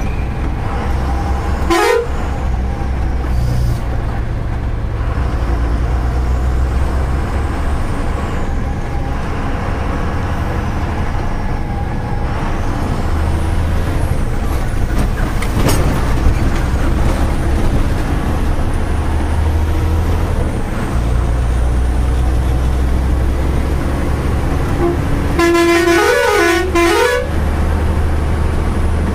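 Tata 3118 truck's diesel engine running under way, heard from inside the cab as a steady low drone. A short horn toot sounds about two seconds in, and near the end comes a longer horn blast whose pitch goes up and down.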